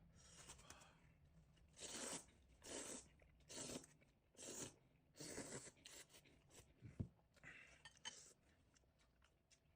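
Crunchy fried chicken being chewed: about five crisp crunches roughly a second apart, then a sharp click.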